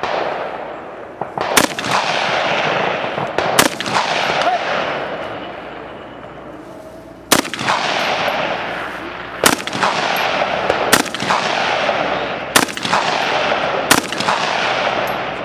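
M16A4 rifle firing single aimed shots, about seven in all at uneven gaps of one and a half to four seconds, each crack followed by a long rolling echo.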